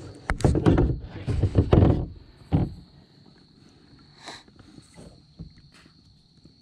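Loud rustling, knocking and a grunt-like burst close to the microphone for roughly the first three seconds, as a largemouth bass is landed by hand in a kayak. Fainter knocks follow.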